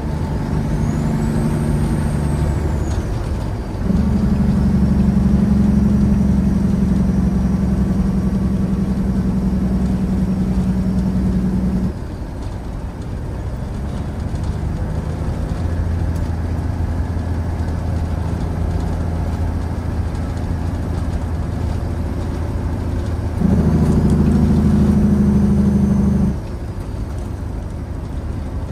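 The diesel engine of a 1998 Peterbilt 379, heard from inside the cab while driving, makes a steady low drone. At about four seconds it steps up in pitch and loudness for some eight seconds, then drops back. It rises again for a few seconds near the end.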